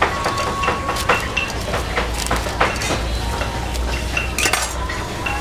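Utensils and dishes clinking and knocking in a quick, irregular run over a low steady hum.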